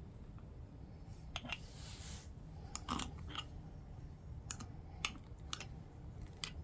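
Scattered light clicks and taps of a metal spoon and glass jars as stuffed peppers and vegetables are packed into jars for pickling, about a dozen irregular ticks over a faint low steady background rumble.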